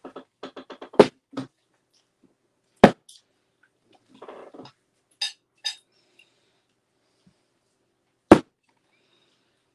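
Knocks and taps from dabbing a foam blending brush loaded with wet acrylic paint onto a small canvas on a wooden desk: a quick run of light taps at the start, then three sharp, loud knocks about one, three and eight seconds in.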